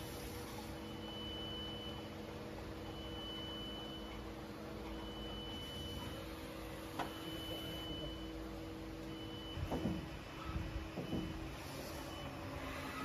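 Double-turret CNC lathe running with a steady machine hum, while a high electronic beep repeats about every one and a half seconds. Around ten seconds in, a few short whirring sounds that drop in pitch, with light knocks, stand out as the loudest part.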